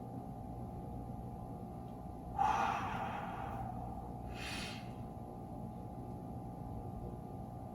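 A person breathing hard during an exercise rep: a forceful exhale about two and a half seconds in, then a shorter breath about a second later, over a steady faint hum.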